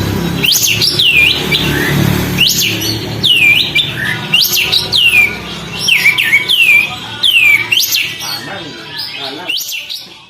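A kapas tembak bulbul calling over and over in sharp whistled notes, each a quick steep sweep in pitch, about one or two a second. A low background rumble sits under the first few seconds.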